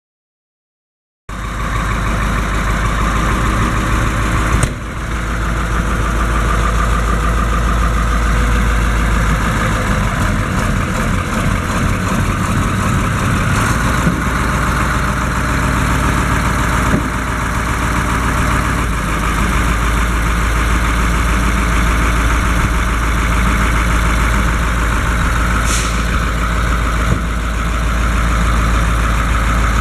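International DV550 9.0L diesel engine of a 1986 International S1700 truck idling steadily. The sound cuts in abruptly about a second in, and there is a brief click a few seconds later.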